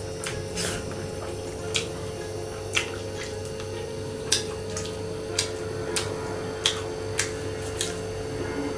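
Fingers mixing rice and curry on a stainless-steel plate: about a dozen small, sharp clicks of fingertips against the metal, spaced irregularly, over a steady low hum.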